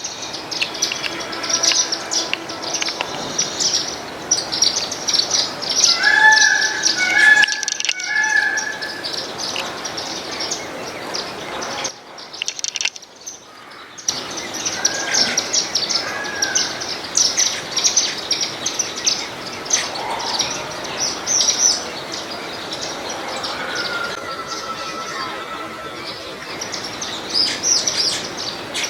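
A flock of small seed-eating birds, Indian silverbills, keeps up a dense, continuous high-pitched chirping and twittering, with a few clearer whistled notes mixed in. The sound drops away for about two seconds near the middle.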